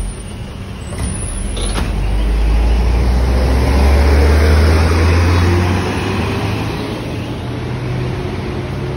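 Bagong intercity bus's diesel engine pulling away and accelerating past, rising to its loudest about four to five seconds in, then easing off as it moves away. Two short clicks come in the first two seconds.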